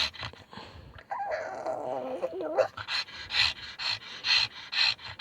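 Pug giving a long wavering whining cry about a second in, then panting and snorting in quick, even breaths, about two to three a second: excited, not upset.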